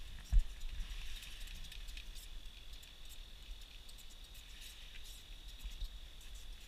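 Ice-fishing rod and reel handled close up: a low thump about half a second in and scattered faint clicks, over a steady high-pitched whine.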